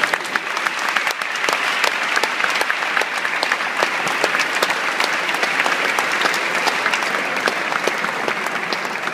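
An auditorium audience applauding steadily, many hands clapping close to the microphone.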